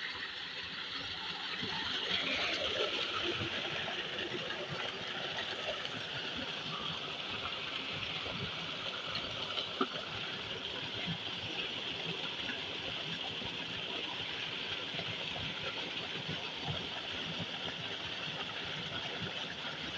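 Steady rush of water gushing from a tube-well pump's outlet pipe and splashing into a brick tank, with a low engine-like rumble underneath. One short knock about ten seconds in.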